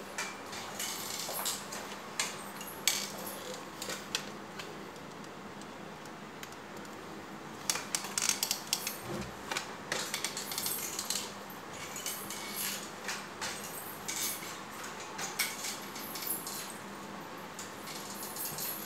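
Irregular light metallic clicks and jingles from a pair of forearm crutches and wrist bangles during walking on the crutches. The clicks crowd together for a few seconds about halfway through.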